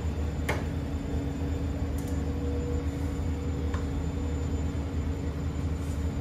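Steady low mechanical hum, with a few faint clicks as lasagne sheets are laid into a stainless steel tray.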